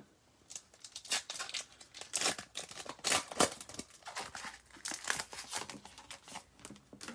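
Trading-card pack wrapper being torn open and crinkled by hand, a run of irregular crackles and rips.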